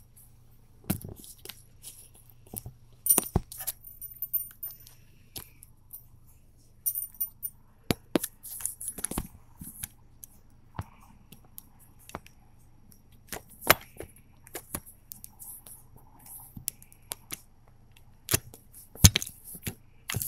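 Metal bangle bracelets clinking together and knocking against a handheld phone as the arm moves, in irregular clicks, taps and short metallic jingles.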